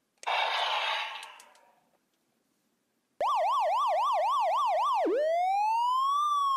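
A noisy whoosh fades out over about the first second and a half. After a short silence, an electronic siren starts: first a fast up-and-down yelp about four times a second, then one slow rising and falling wail.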